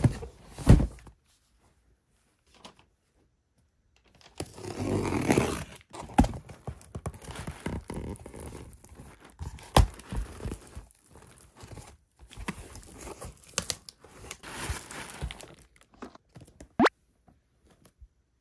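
A cardboard shipping box being opened and handled: a few sharp knocks at the start, a burst of tearing about five seconds in, then rustling, scraping and knocks of cardboard packaging as the box inside is pulled out.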